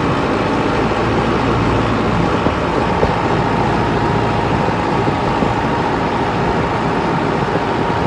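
Tractor's diesel engine running steadily while the tractor drives along, heard close up from the driver's seat.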